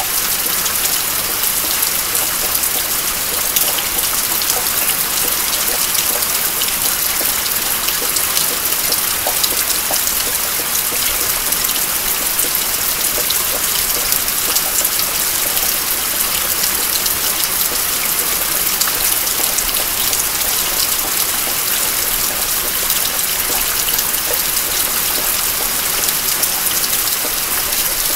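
Steady rain falling, an even hiss of drops with fine ticks, and water dripping from a roof eave.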